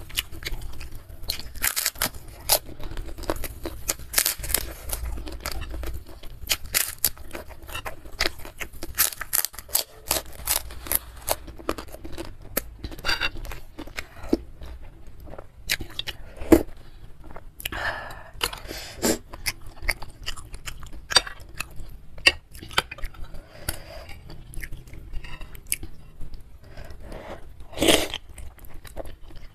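Close-miked crunching and chewing of crispy white kerupuk crackers, with many sharp crackles in quick succession, thinning out later into wetter mouth sounds. Near the end there is one loud slurp as a forkful of instant noodles is sucked in.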